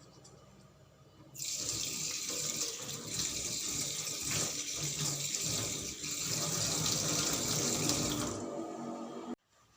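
Tap water running into a sink for hand washing: the tap comes on about a second in and goes off about a second before the end, and then the sound cuts off abruptly.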